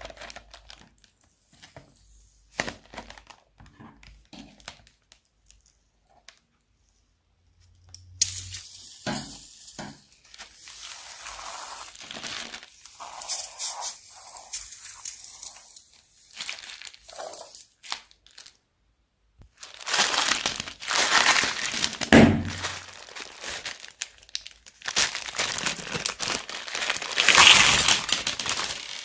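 Plastic bags crinkling and crackling as they are handled, in several long bursts after a quiet stretch of scattered small clicks.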